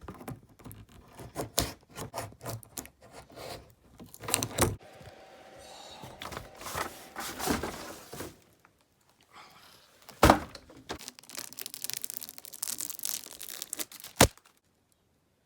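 A cardboard box being opened and unpacked: packing tape slit with a tape measure blade and torn, and cardboard and packaging rustled and scraped. Sharp knocks about ten seconds in and again near the end, the first the loudest.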